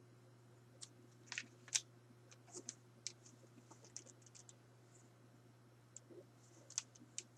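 Faint, scattered clicks and taps of a hard plastic action figure being handled and turned over, over a low steady hum.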